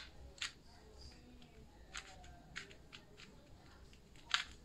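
A 2x2 Rubik's cube being turned by hand: a few irregular, faint plastic clicks a second or so apart, the loudest near the end.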